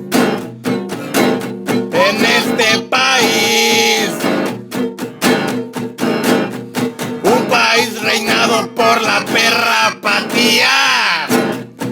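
Music: acoustic guitar strumming chords, with a voice singing over it that holds some notes.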